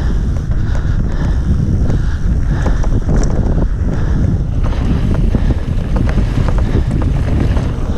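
Wind noise on the microphone of a mountain bike's camera while riding fast down a dirt trail, mixed with steady tyre rumble and the bike rattling over bumps.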